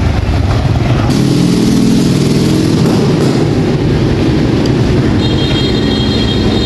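A motor engine running close by, with a steady drone from about a second in.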